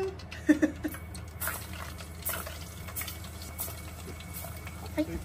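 Floured chicken-breast karaage pieces sizzling as they deep-fry in a pot of hot oil, with a steady crackle of small pops. There are a couple of sharp knocks near the start.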